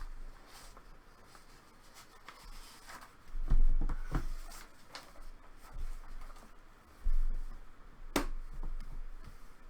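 Handling noises from opening a trading-card box and its contents on a table: light rustling, a couple of low thumps midway, another thump, then one sharp click.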